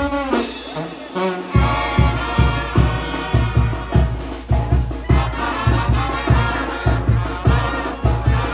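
Live brass band playing. For the first second and a half the horns hold a phrase with no bass under it, then a steady bass and drum beat comes back in, about two pulses a second.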